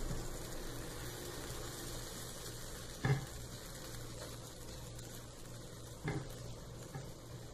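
Fried balushahi pieces being placed one by one into a glass bowl of sugar syrup: two short knocks, about three seconds in and again about six seconds in, with a fainter one soon after, over a steady low hum.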